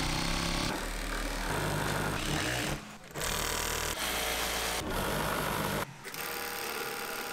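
Industrial sewing machines running fast, stitching fabric and elastic, in short runs that break off abruptly several times; quieter after about six seconds.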